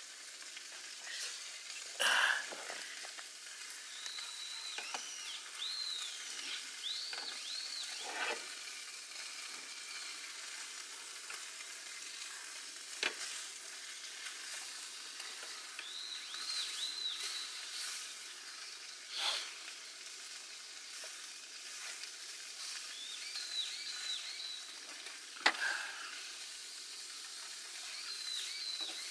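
Steady sizzle of a ham, cheese and sausage sandwich frying in butter, with a few sharp knocks and short high chirps now and then.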